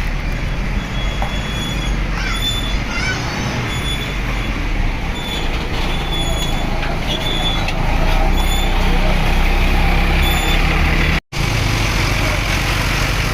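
Large bus engine running with road and traffic noise, growing louder about two-thirds of the way through. Short high chirps sound over it, and the sound drops out for an instant near the end.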